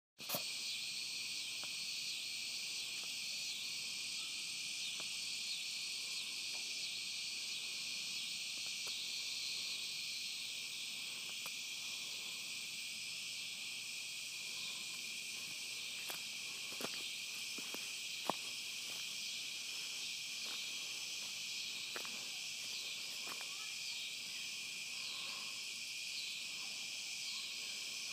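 Steady, high-pitched chorus of insects, with a few sharp clicks about two-thirds of the way through.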